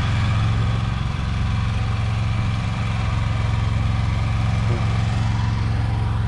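An engine idling steadily at an even pitch, with no revving.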